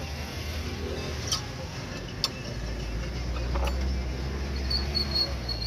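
A few sharp clicks and, near the end, light metallic clinks as a farrier handles his metal hoof-trimming tools and horseshoe nails, over a low rumble.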